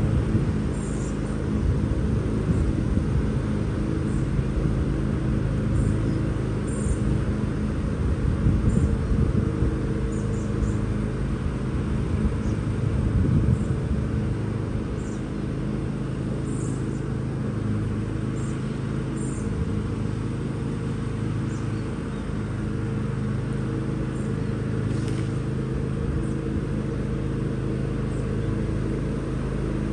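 Lawn mower engine running steadily at constant speed, with faint bird chirps now and then.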